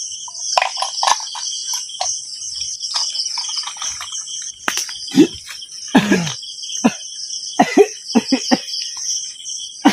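Crickets chirring steadily while a man gives a string of short coughs and strained vocal outbursts, coming thick and loud from about halfway through.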